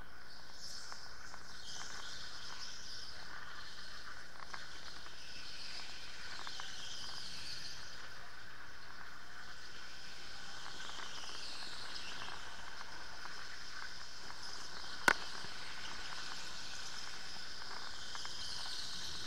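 Electric go-kart running at speed, heard from onboard: a high-pitched whine that rises and falls continuously over a steady hiss. There is one sharp click about fifteen seconds in.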